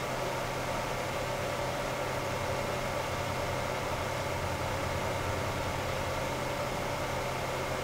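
Titan TFD-12025H12ZP 120 mm PC fan running steadily at 10 volts: an even rush of air with a steady whine over it.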